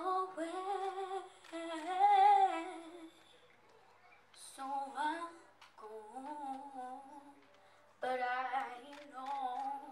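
A young girl sings into a microphone in three phrases with short pauses between them, and no backing music is heard. Her voice is weakened by a cold.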